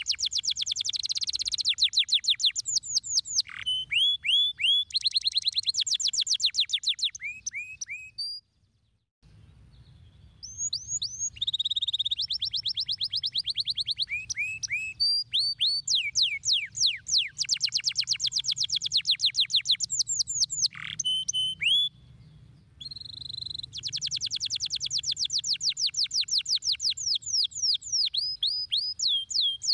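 Domestic canary singing a long song of rapid trills. Each trill is a fast run of quick downward-sweeping notes repeated many times a second, and the trill changes from one to the next. The song breaks off briefly about eight seconds in and again near 22 seconds.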